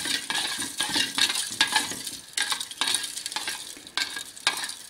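Metal teaspoon stirring in a small glass bowl, scraping and clinking against the glass in quick, even strokes about twice a second, with a faint ring from the glass: nigari (magnesium chloride) being dissolved in a little water.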